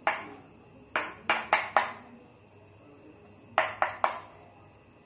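A metal spoon clinking against a stainless steel bowl of freshly churned butter, about eight sharp ringing taps: one at the start, four in quick succession about a second in, and three more near the end. The taps come as the last water is drained off the butter.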